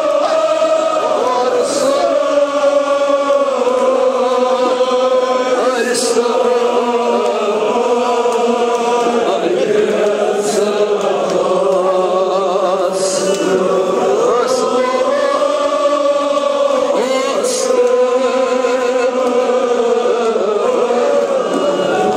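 Men's voices chanting a Kashmiri marsiya, a Shia mourning elegy, together in long drawn-out lines, with a few short sharp hits now and then.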